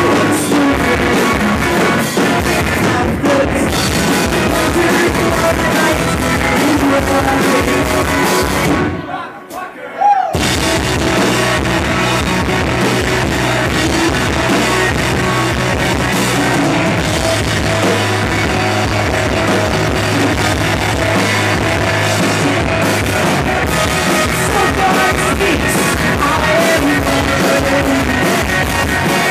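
Rock band playing live through a club PA: electric guitars, keyboard and drum kit. About nine seconds in the band stops for roughly a second, then comes back in at full volume.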